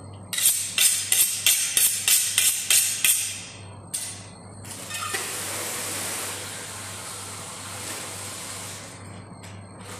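A kitchen knife drawn quickly back and forth along a honing steel: about ten ringing metallic strokes, roughly three a second, over three seconds. Then a tap runs water into the sink for about four seconds.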